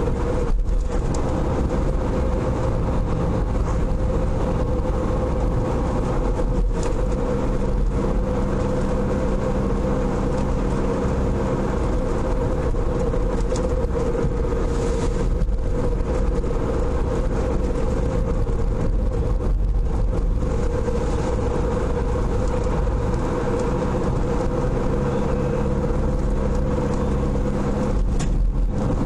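Car driving along a road, heard from inside the cabin: steady engine and tyre noise with a constant hum, the lower engine tone coming and going with the throttle.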